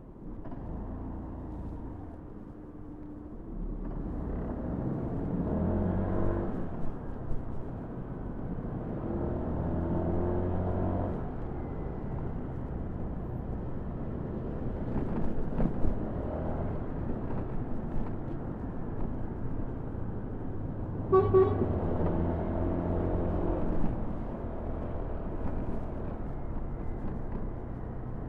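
Motorcycle engine pulling away and accelerating several times in traffic over steady road and wind noise. A short vehicle horn toot sounds about three-quarters of the way through.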